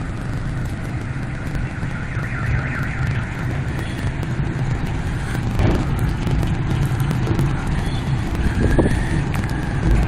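Battery-powered rail transfer trolley running: a steady low motor hum, with a warbling warning tone sounding at times above it.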